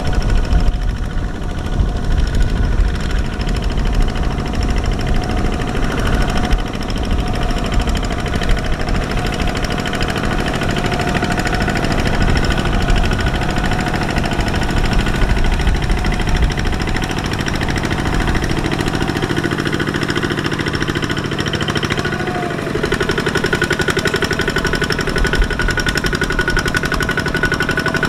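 Single-cylinder diesel engine of a two-wheel walking tractor chugging with a rapid, steady knock while it pulls a loaded trailer through deep mud. Its tone shifts slightly about three-quarters of the way through.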